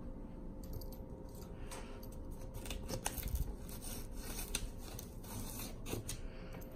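Torn corrugated cardboard on a shipping box crackling and scraping as a hand pokes and rubs at the ragged flaps of a hole in its side, a quick irregular run of crinkly clicks.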